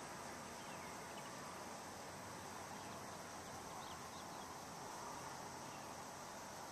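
Faint steady outdoor ambience, an even hiss, with a few faint short high chirps scattered through it.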